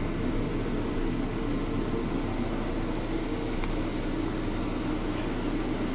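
A heater running steadily with an even whirring hum, a couple of faint clicks in the second half.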